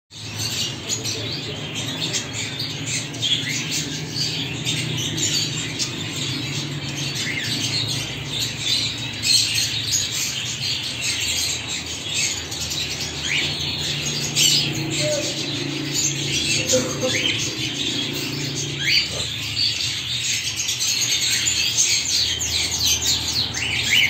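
Cockatiels chirping and chattering, a dense stream of short high chirps and quick squeaky glides overlapping, over a low steady hum.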